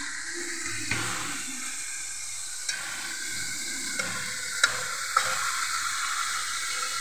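Chicken pieces sizzling as they fry in hot oil in a metal pot, stirred with a spoon, with a few light clinks of the spoon against the pot.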